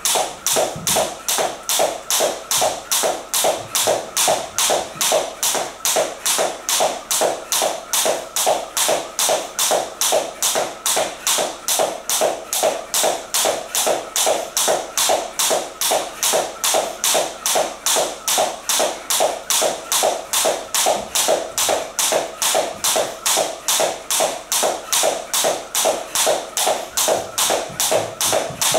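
Jump rope skipping on a wooden floor: the thin cable rope swishing and slapping the floor as she lands on each turn, in a steady rhythm of about two beats a second.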